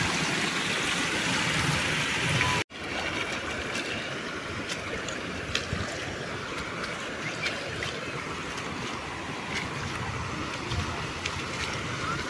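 Muddy floodwater rushing and pouring over the edge of a flooded field. About two and a half seconds in, the sound cuts off abruptly, then continues as a quieter, steady wash of flowing water with scattered faint clicks.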